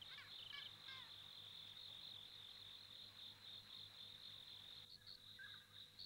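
Faint crickets chirping in a steady high trill, with a few faint short chirps in the first second.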